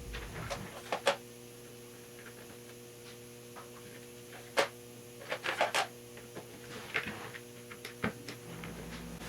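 Scattered light clicks and knocks of rocker arms and parts being handled and slid on a Triumph TR6 rocker shaft during reassembly, over a steady hum.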